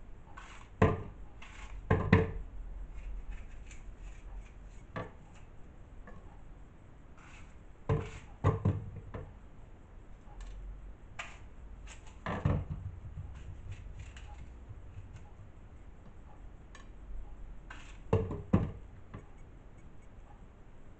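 An apple being cut up with a kitchen knife: sharp knocks of the blade in small clusters every few seconds, with quieter handling and scraping between them.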